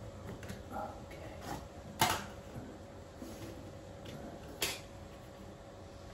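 Hand-work noise while fitting wallpaper at the base of a sink: a few faint ticks, then two sharp clicks, about two seconds in and again about four and a half seconds in, over a faint steady hum.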